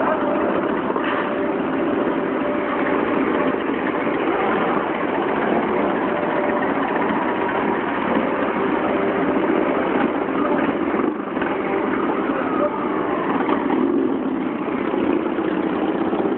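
Motorcycles, mostly cruisers, riding slowly past one after another in a parade, their engines blending into a steady, loud running sound.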